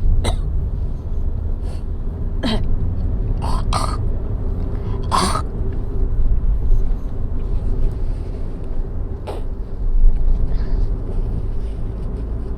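A woman's short throat-clearings and coughs from an asthma flare, repeated at irregular intervals about a second or more apart. A steady low car-cabin rumble from driving runs underneath.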